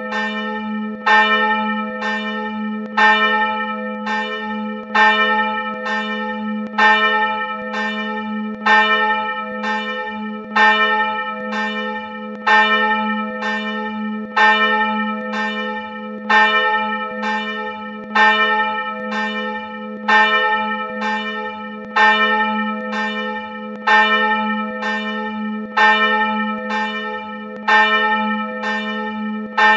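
A single church bell, bell 1 of the Wichernkirche, swinging and ringing steadily, its clapper striking about every two seconds. Each stroke's ring runs on into the next over a steady low hum.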